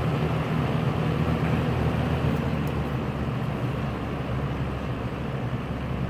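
1980s Lasko Galaxy three-speed box fan with a plastic motor running on high: a steady rush of air over a low motor hum.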